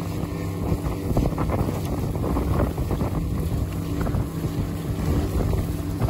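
Outboard motor on an inflatable boat running steadily at speed, with water slapping and splashing against the hull and wind buffeting the microphone.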